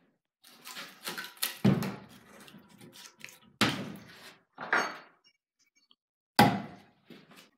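Split ash log sections being handled and set down on a wooden workbench: a quick cluster of wooden knocks in the first two seconds, then single heavy thunks about three and a half, five and six and a half seconds in.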